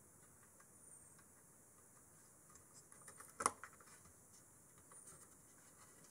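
Near silence broken by a few faint ticks and one short, sharper click about three and a half seconds in, as cache chips are pressed back into their sockets on a 386 mainboard.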